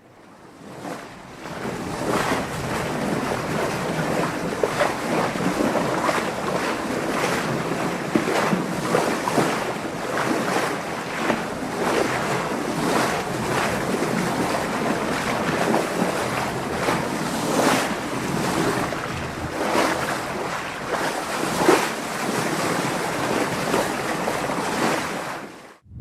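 Water washing and splashing continuously, like small waves breaking and lapping, with many short irregular splashes. It fades in over the first couple of seconds and fades out near the end.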